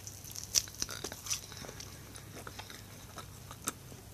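A person chewing pandesal bread rolls: faint, irregular small clicks and mouth noises.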